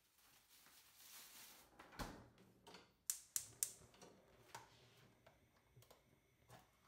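Quiet kitchen handling sounds: a soft knock about two seconds in, then three quick sharp clicks and a few lighter taps, from a refrigerator door being shut and a plastic food container being handled.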